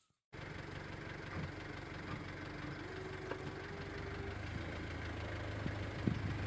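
Vehicle engine running steadily, cutting in abruptly a moment in.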